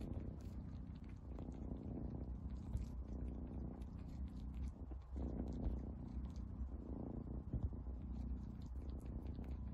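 A cat purring, a steady low rumble, with faint scratchy ticks from its paw working into a fleece blanket.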